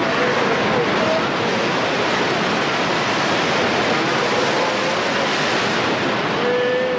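Heavy surf breaking steadily against a rocky islet. A few faint, drawn-out whimpering calls of sea lions and seals rise over it, the longest near the end.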